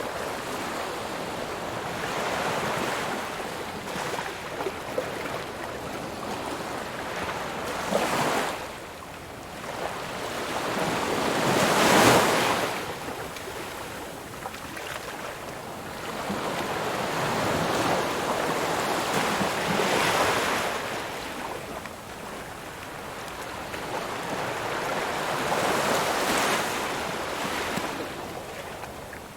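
Ocean waves breaking on a shore, surf swelling and ebbing. The loudest wave crashes about twelve seconds in, and smaller ones come roughly every six seconds.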